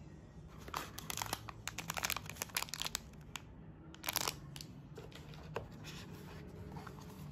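Packaging crinkling and rustling in quick clusters as a small snack packet of raisins is picked up and handled, with a second sharp rustle about four seconds in, then a few light taps.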